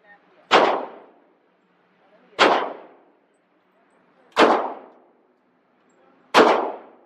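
Four gunshots about two seconds apart, each a sharp crack with a short ringing tail.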